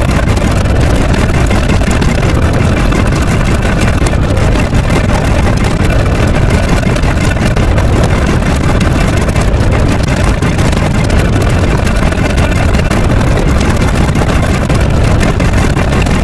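A loud, steady, engine-like noise that holds dense and unbroken, heaviest in the low end.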